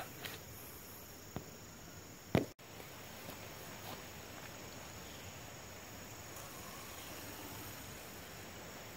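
Steady outdoor insect chirping in the background, with a faint click about a second and a half in and a short, louder knock just before two and a half seconds.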